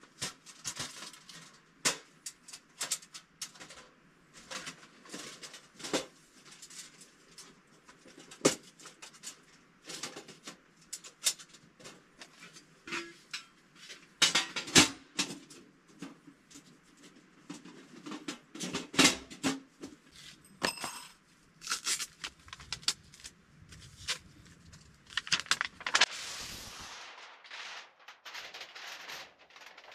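Sheet-metal tent stove parts clanking and knocking as they are handled and fitted together: irregular sharp metal clicks and taps throughout. Near the end there is a short, longer scraping rustle.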